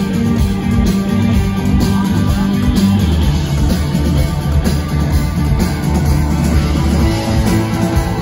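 Rock band playing live: electric guitars, bass, keyboard and drums, with a steady bass line and a regular beat.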